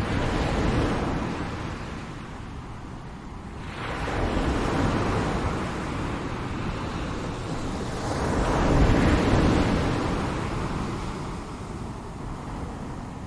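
Ocean surf: waves breaking and washing in, three swells of rushing water about four seconds apart, each building and then fading back.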